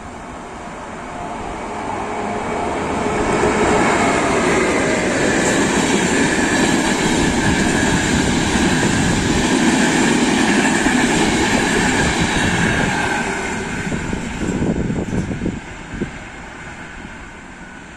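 Intercity passenger train running through the station at about 100 km/h without stopping. The rail noise builds over the first few seconds as it approaches, stays loud for about ten seconds while the coaches pass close by, then fades and drops away suddenly near the end.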